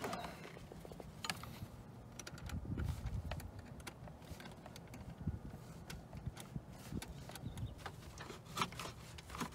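Scattered light plastic clicks and knocks from hands working at a car's engine-bay air intake duct, trying to pull it free, with a brief low rumble of handling about three seconds in.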